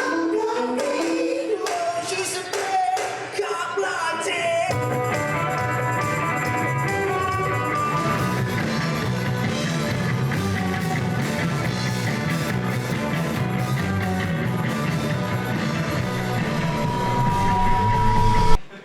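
Rock music with singing. A lighter, plucked opening gives way to the full band with bass and drums about five seconds in, and it cuts off abruptly near the end.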